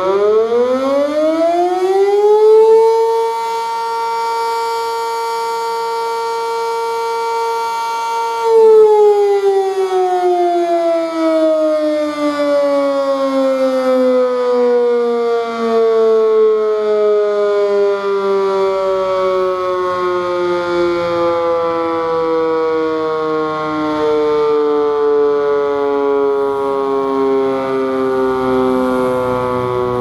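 W. S. Darley Champion dual-rotor mechanical tornado siren sounding a short-alert test. It winds up to a steady wail within about three seconds and holds it for about five, then is switched off and coasts down for the rest, its pitch slowly sinking.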